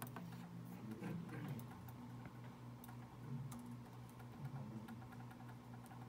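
Light, irregular clicks of small tactile push buttons being pressed on an FPGA development board, over a steady low hum.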